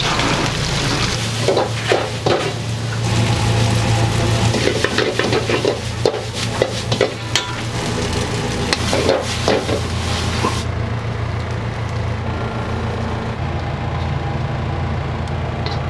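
Food sizzling and stir-frying in a metal frying pan on a stove, with a metal utensil scraping and clattering against the pan many times. The sizzling cuts off suddenly about ten and a half seconds in, leaving a steady low hum.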